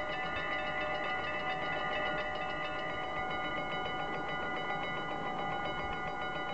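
Three mechanical level-crossing warning bells ringing together in rapid, steady strokes, their overlapping metallic tones held throughout: the crossing's warning signal for an approaching train while the half-barriers come down.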